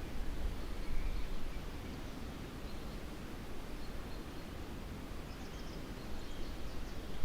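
Forest ambience: a steady low rumbling wash of outdoor noise, with a few faint, high bird chirps about a second in and again near the end.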